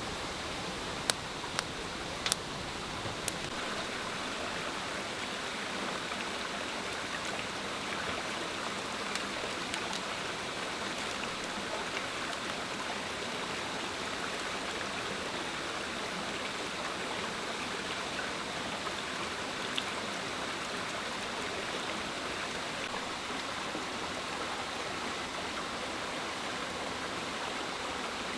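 A steady rush of water, with a few sharp clicks in the first three seconds.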